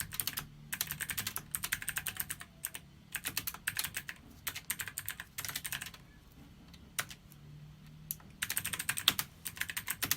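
Typing on the Imperion Mech 7 mechanical keyboard with blue switches: fast runs of sharp, clicky keystrokes in bursts, with a pause of a second or two about two-thirds of the way through.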